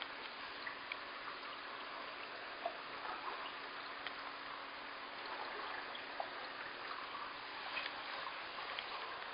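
Aquarium water trickling steadily, with a faint steady hum and scattered small drips and plinks.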